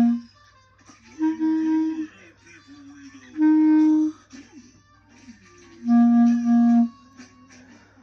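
Clarinet playing single held notes, each under a second long, separated by pauses. Two notes come in the first half. Near the end the same lower note is tongued twice in a row.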